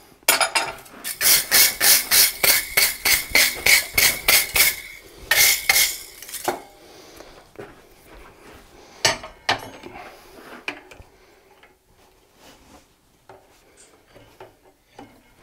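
A quick, even run of light metal-on-metal clinks, about four a second with a ringing tone, from blacksmith's tools working a hot twisted steel bar held in a vise. After about six seconds it breaks off into a few scattered clinks.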